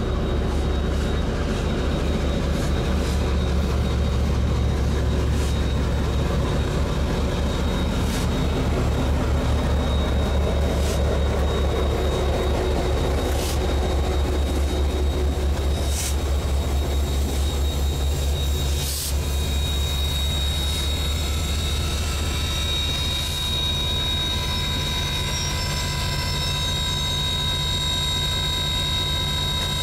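Diesel-hauled train running with a steady low, pulsing rumble and a few sharp clicks. About two-thirds of the way in, a high squeal of several steady tones sets in and holds to the end, typical of steel wheels squealing on the rails.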